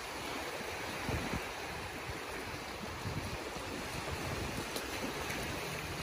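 Small waves washing steadily onto a sandy beach, with wind buffeting the microphone in low rumbles.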